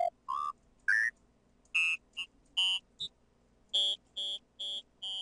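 Short synthesizer notes from a Native Instruments Massive patch through a formant filter, each note's bright vowel-like peak climbing higher over the first three seconds as the filter is swept. Then even repeated notes, about three a second.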